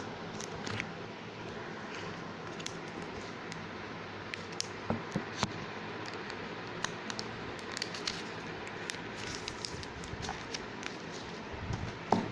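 Protective plastic film being peeled and crinkled off a new smartphone: scattered small crackles and clicks over a steady low hiss, with a louder knock near the end.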